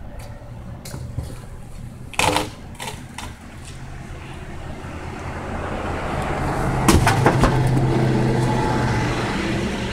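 A motor engine running steadily, growing louder over the last few seconds and easing off near the end, with a sharp knock about two seconds in and another knock about seven seconds in.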